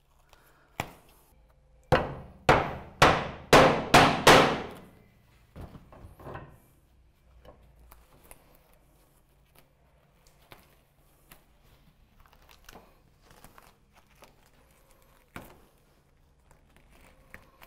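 Claw hammer driving a nail through butyl-and-aluminium-mesh roof flashing into a timber batten. There is one blow about a second in, then a quick run of six blows. After that come faint taps and handling sounds, and one more knock near the end.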